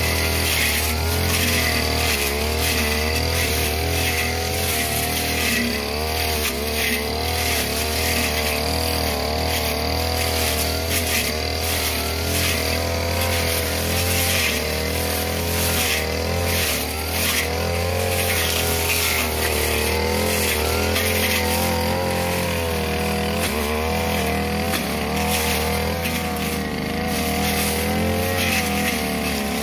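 Two-stroke 328 brush cutter engine running at high speed, its pitch wavering up and down as the metal blade is swung through thick, tall dry grass. The grass makes frequent brief swishes and cracks as it is cut.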